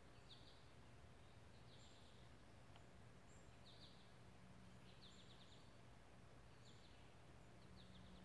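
Near silence: faint outdoor ambience with a small bird chirping short high notes over and over, about once a second, over a faint steady low hum.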